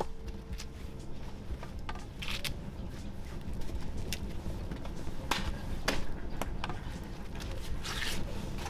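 Wood campfire crackling with scattered sharp pops, and dry corn husks rustling as they are peeled back, briefly about two seconds in and again near the end.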